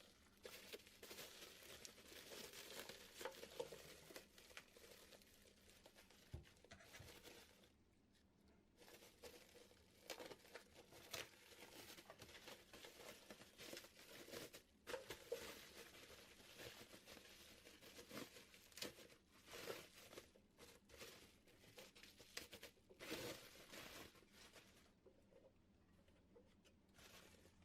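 Packaging being handled and unwrapped, rustling in uneven bursts with scattered sharp clicks, dying down in the last few seconds.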